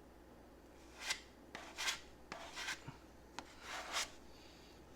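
Spreader scraping glazing putty across the repaired fender, a handful of short scratchy strokes.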